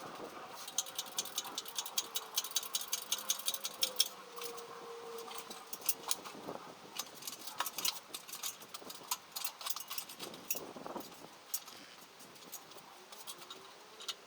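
Runs of light, sharp metallic clicks from hand tools at work on an engine: quick and even, several a second, for the first few seconds, then scattered, over a faint wavering hum.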